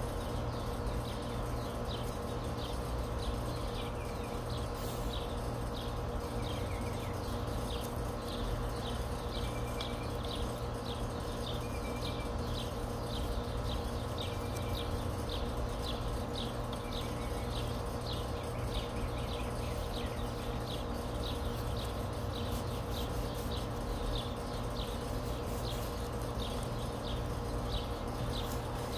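Regular high-pitched animal chirping, about two chirps a second, with a softer, lower chirp every two to three seconds, over a constant low hum.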